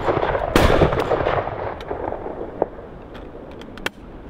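Miroku MK38 12-bore over-and-under shotgun firing a heavy 40 g load of No. 4 shot: one loud report about half a second in, with the echo of the shot before it still dying away at the start. The report rolls away over a couple of seconds, then a few small clicks near the end as the gun is broken open.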